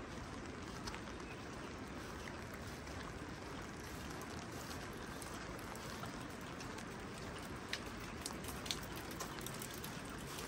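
Steady rain falling, an even hiss of drops, with a few sharp taps in the second half.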